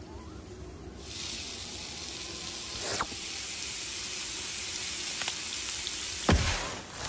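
Cartoon sound effect of a steady sizzling hiss as a beam of light heats an ear of corn, starting about a second in, with a couple of faint ticks. Near the end a single loud pop, the corn bursting into popcorn.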